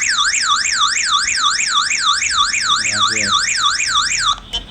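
Built-in electronic siren (hooter) of a GSM+WiFi home alarm panel, sounding an alarm after its sensor is tripped. It is a loud, fast rising-and-falling wail, several sweeps a second, that cuts off suddenly near the end as the system is disarmed.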